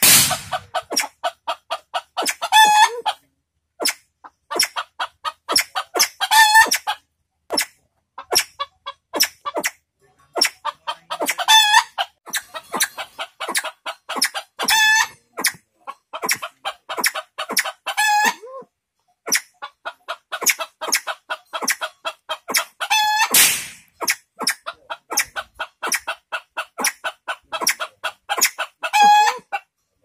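Caged fowl calling: a fast, unbroken run of short clucks, with a louder pitched call breaking in every three to six seconds, about seven times.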